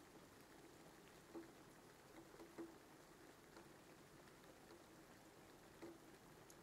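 Near silence with faint, scattered paper crackles and taps as a folded origami paper tie is pressed flat and turned over on a carpet; the clearest come about a second and a half and two and a half seconds in.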